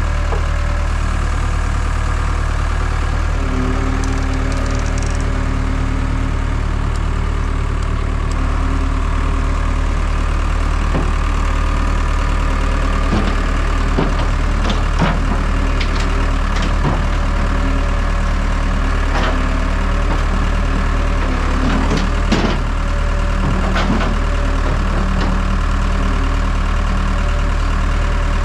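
Case 60XT skid steer's diesel engine running steadily close by while it works its loader bucket. A few sharp knocks and clanks come through it, mostly in the second half.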